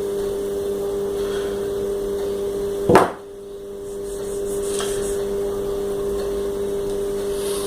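A steady hum runs underneath, with one sharp knock about three seconds in and a faint tick a couple of seconds later, from small metal parts and tools being handled at the bench.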